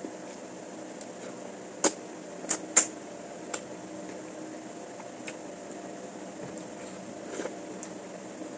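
Several short, sharp clinks of eating utensils against a dish, the three loudest close together about two seconds in, over a steady hum like a fan or air conditioner.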